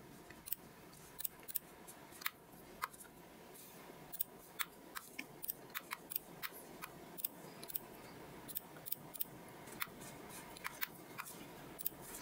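Faint computer-mouse clicks, repeated at irregular intervals, sometimes in quick pairs, over a light background hiss.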